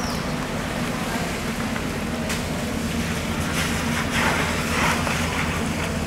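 Water from a hose splashing over a large bluefin tuna and crushed ice, the splashing growing stronger from about three and a half seconds in, over a steady low hum.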